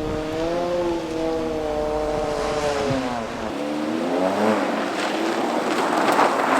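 A Suzuki Swift rally car's engine revving on a snow stage. The pitch rises and falls, drops about three seconds in and climbs again, while a rushing noise from the tyres grows louder near the end as the car comes closer.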